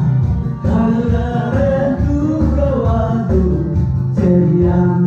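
Karaoke backing track for a Korean song, with a steady bass beat under a wandering melody line.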